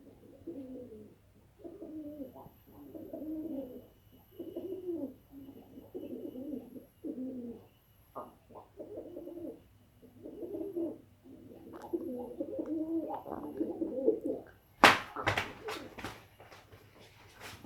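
Dove cooing: a run of short, low coos repeated about once a second. About fifteen seconds in, a loud clatter of several sharp knocks.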